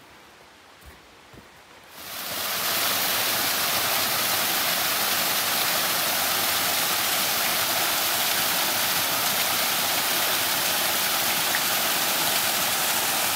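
Waterfall rushing steadily. It comes in quickly about two seconds in, after a quiet moment with a few faint clicks.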